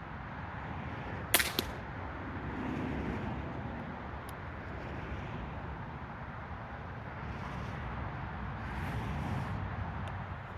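A single sharp crack about a second and a half in, with a smaller click just after it, over a steady low outdoor rumble and hiss.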